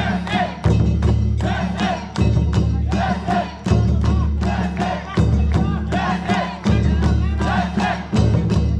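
Kawabune float festival music: men chanting and shouting in short repeated calls, over quick percussion strikes and a steady low drone that breaks off and starts again every second or so.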